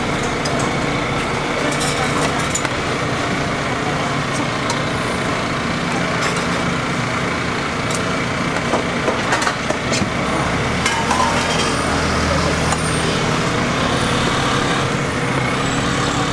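Steady hum of road traffic and running engines, with scattered light clicks and knocks of a metal spoon and ceramic bowls being handled.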